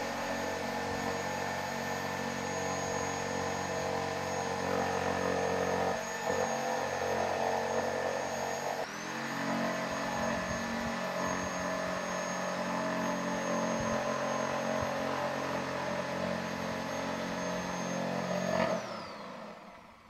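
Power saw running steadily as it cuts through pieces of old wooden furniture, its pitch dipping briefly about nine seconds in. Near the end it is switched off and its whine winds down.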